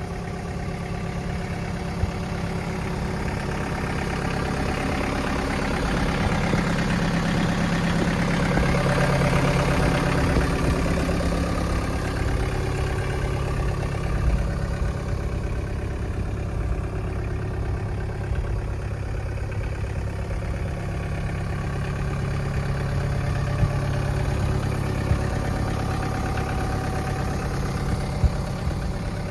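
John Deere 110 backhoe's diesel engine running steadily, getting louder for several seconds about a third of the way in, with a few short clicks scattered through.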